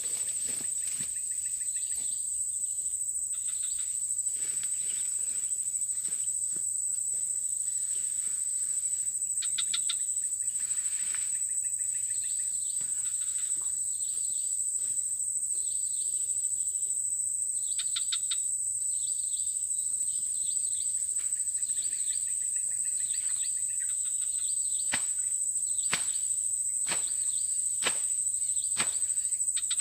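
Insects droning in one steady high-pitched note, with scattered short chirping calls over it. Several sharp clicks come in the last few seconds.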